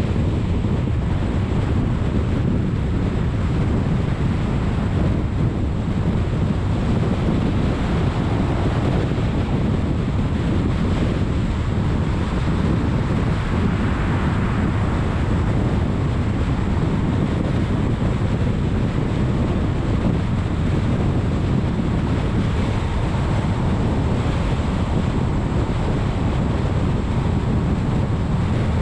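Steady rush of wind over an exterior hood-mounted GoPro, mixed with tyre and road noise from a car cruising at freeway speed. It brightens a little about halfway through while passing under an overpass.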